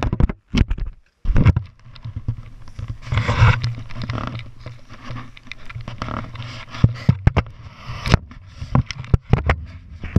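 Handling noise of a wearable camera, with irregular knocks, clicks and rubbing scrapes as it is moved and carried. A steady low hum runs underneath.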